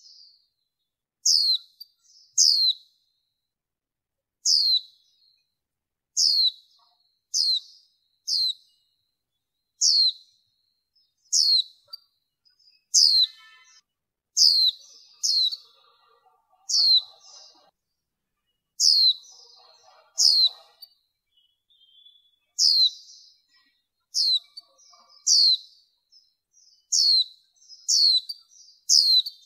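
Female white-eye giving short, high chirps that each sweep sharply downward, about one a second and sometimes two close together. This is the female call used to excite male white-eyes.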